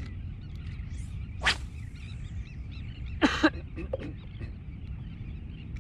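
Steady low wind rumble on the microphone, with faint bird calls and two brief sharp sounds about one and a half and three and a half seconds in.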